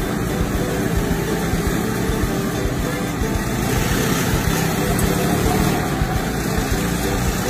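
Engines of several off-road buggies running as the buggies pull out one after another and drive past, a steady low rumble throughout.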